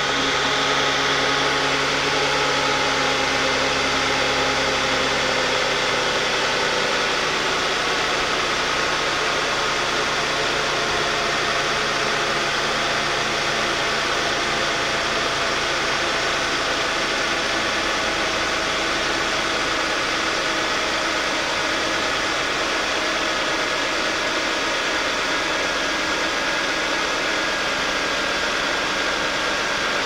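A 1998 Ford Taurus 3.0 litre 24-valve V6 idling steadily with a buzz mixed in, a noise the owner hears only while the engine is cold and cannot locate. A deep low hum drops away about six seconds in, while the rest of the drone holds steady.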